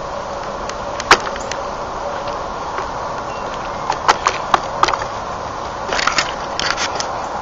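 Steady background hiss with scattered sharp clicks and knocks: one loud click about a second in, a few more around four to five seconds in, and a quick cluster near the end.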